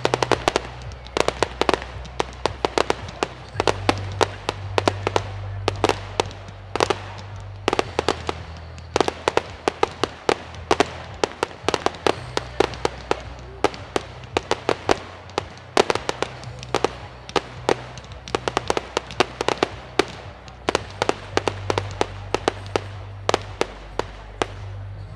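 Fireworks display going off: a dense, continuous run of sharp bangs and crackling pops, several a second.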